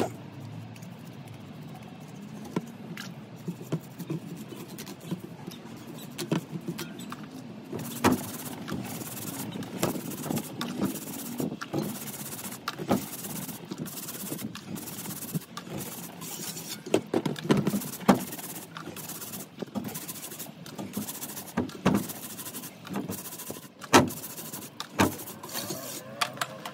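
Brush scrubbing a wet, soapy knobbly mountain-bike tyre in short repeated strokes, with knocks and clicks as the wheel is turned by hand on the bench.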